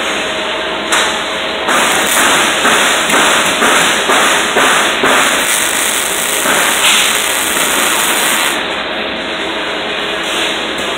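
MIG welding arc crackling and sputtering as a bead is laid on steel: a short burst about a second in, then a longer run of several seconds that stops near the end.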